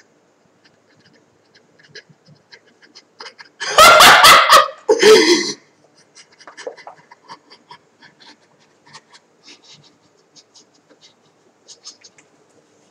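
A man's voice letting out two very loud, overloaded yells, about four and five seconds in, with faint breathing and small clicks around them.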